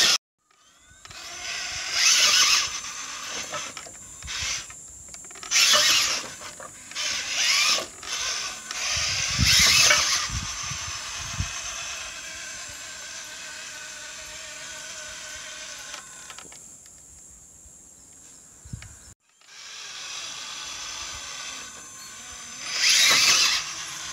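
Electric RC rock crawler's motor and geared drivetrain whining as it climbs a steep wooden ramp, surging loudly in short bursts of throttle several times and easing between them.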